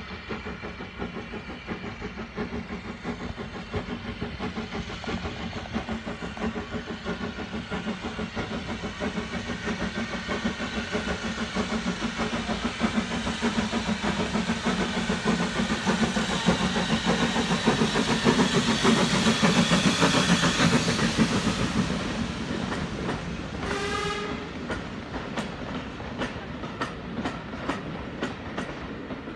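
A steam locomotive working up a curve with carriages, its running sound growing steadily louder as it approaches and passes, then falling away. A brief rising whistle-like tone sounds about three-quarters of the way through, followed by a quick run of regular clicks as the carriage wheels pass over rail joints.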